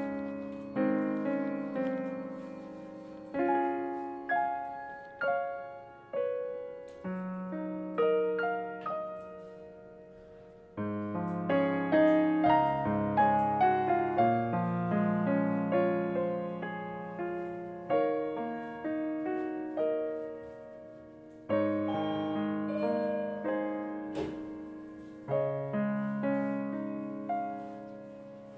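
Slow solo piano background music, notes and chords struck and left to fade.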